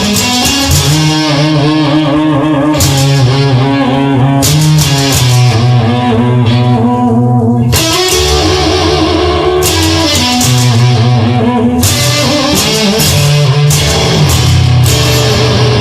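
Instrumental rock music led by guitar, with sustained chords and sharp strikes every second or two.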